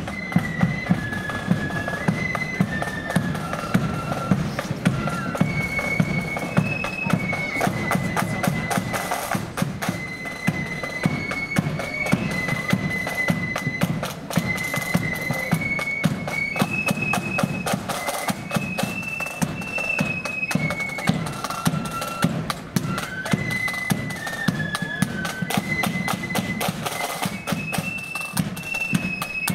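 Marching flute band playing a tune: flutes carry a held, stepping melody over dense, steady side-drum strokes.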